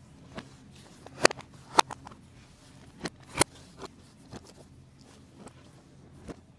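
Plastic DVD cases being handled on a blanket, giving a few sharp clicks and taps, the loudest in the first half, with quiet rustling between them.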